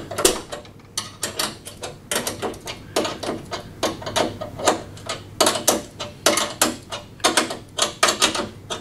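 A 13 mm spanner tightening the lower nut on a lawn mower's handle bracket: short runs of quick metallic clicks, one run after another.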